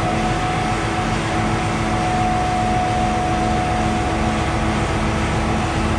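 Steady machinery running: an even drone with a held whine and a lower tone that pulses in an even rhythm.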